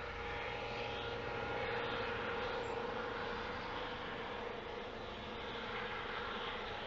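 Gendarmerie helicopter flying overhead: a steady turbine-and-rotor drone with a held whine, swelling slightly about two seconds in.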